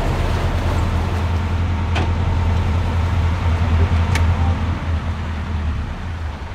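Narrowboat diesel engine running at idle, a steady low hum that fades off near the end.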